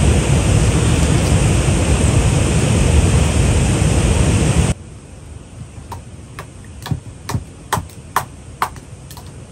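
A steady loud rushing noise, which cuts off abruptly about halfway through. It is followed by a sickle blade chopping kindling wood, about seven sharp chops at roughly two a second.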